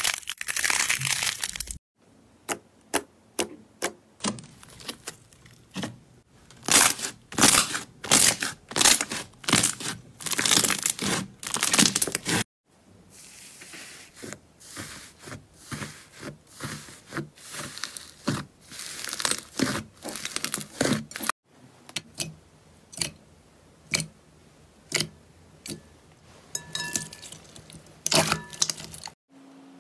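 Slime being pressed, poked and stretched by hand, giving runs of sharp crackles and pops. The sound breaks off abruptly several times where one short clip cuts to the next.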